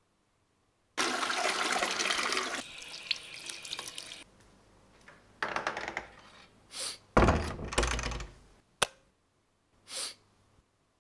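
Water rushing and then draining away for about three seconds, of the kind PANN files as a toilet flush, followed by a few shorter noises and a single sharp click about nine seconds in.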